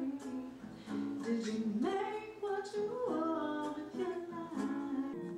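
A woman singing a melody, accompanied by an acoustic guitar.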